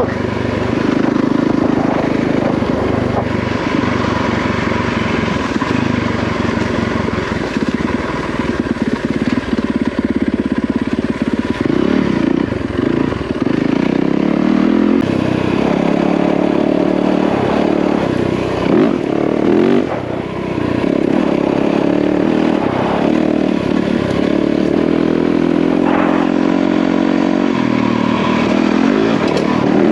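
Yamaha WR450F dirt bike's single-cylinder four-stroke engine running under way, its note rising and falling as the throttle is opened and eased off.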